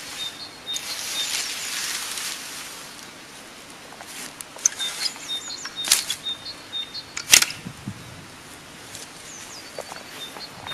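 Cut grass rustling as a hay fork lifts and drops it onto a heap over the first two seconds, with a bird repeating a short high chirp and two sharp clicks about six and seven and a half seconds in.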